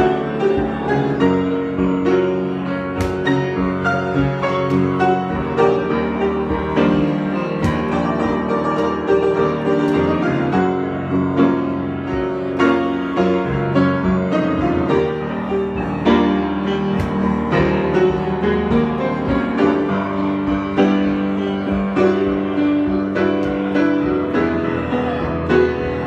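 Piano played solo in an improvised piece: a continuous flow of notes and chords with sustained tones.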